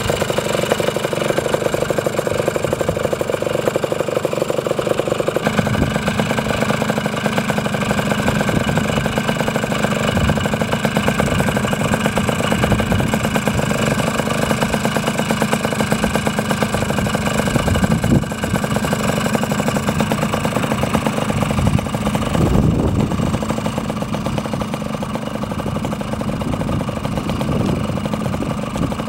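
Yamaha MT125 Elsinore's two-stroke single-cylinder engine idling steadily through its custom muffler, with a few brief rises in engine speed.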